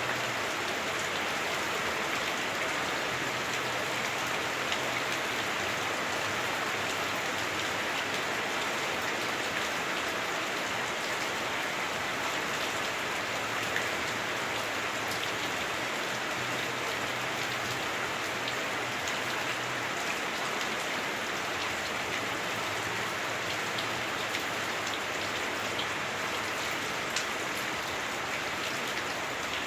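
Heavy rain on a house roof, heard from inside the house: a steady, even hiss with occasional small ticks of single drops.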